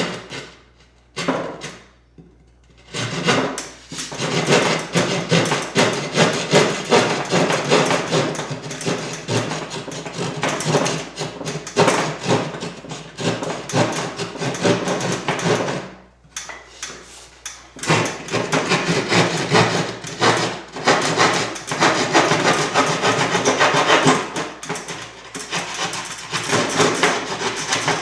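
Keyhole saw sawing through gypsum drywall board in quick, rasping back-and-forth strokes, pausing briefly twice.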